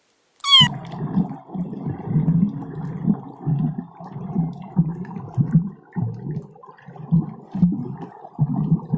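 A large animal grunting low and rough in a steady run, about two grunts a second. It is preceded about half a second in by a short rising squeak.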